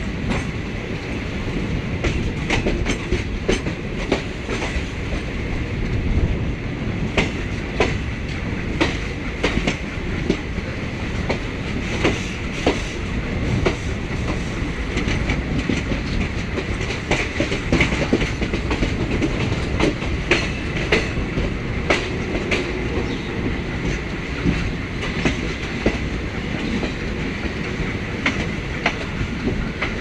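Passenger train running at speed, heard from beside a coach: a steady rumble of wheels on the track, broken by frequent irregular sharp clicks as the wheels cross rail joints.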